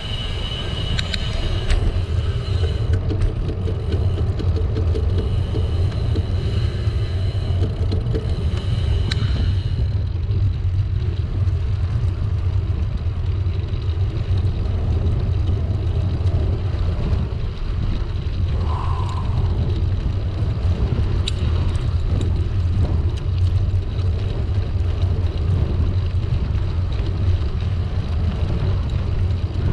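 Steady low rumble of a gravel bike riding on tarmac: air rushing over the camera's microphone with the hum of road tyres on the asphalt. A thin high whine runs along with it for roughly the first ten seconds.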